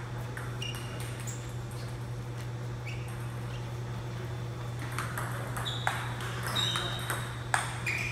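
Table tennis ball hits: a few scattered clicks at first, then a rally from about five seconds in, with the celluloid/plastic ball clicking sharply off paddles and table. A steady low hum runs underneath.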